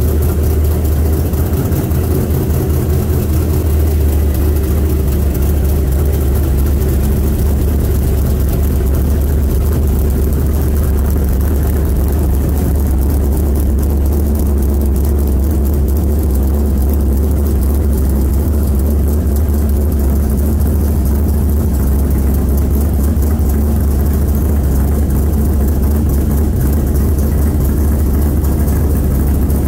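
1971 Dodge Dart's 451 stroker big-block V8 idling steadily through its new custom exhaust, low-pitched and even with no revving. The owner suspects a small exhaust leak at a header gasket on this engine.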